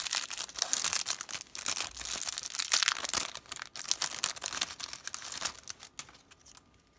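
Clear plastic wrapper of a sealed trading-card promo pack crinkling and tearing as it is peeled open by hand. The crackling dies away near the end.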